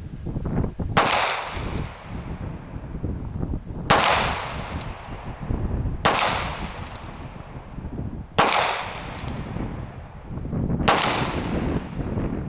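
Five single shots from a Glock 17 Gen 4 9x19mm pistol, fired slowly about two to three seconds apart, each with a fading echo.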